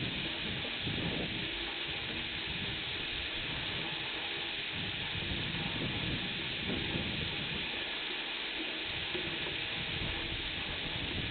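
Steady rain hissing down during a thunderstorm, with low gusts of wind buffeting the microphone now and then.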